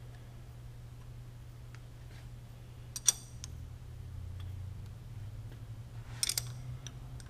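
Sharp metallic clicks of hand-handled lathe parts as the compound slide is locked down: one about three seconds in and a short cluster about six seconds in. A steady low hum runs under them.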